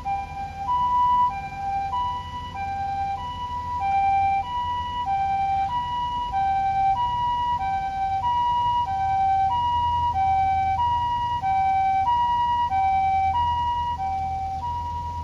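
Japanese ambulance two-tone "pee-po" siren, steadily alternating a high and a low tone, with overtones above each tone.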